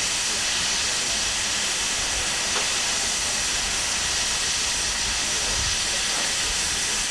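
Steady hiss of steam escaping from a standing GWR Castle class 4-6-0 steam locomotive, No. 7029 Clun Castle.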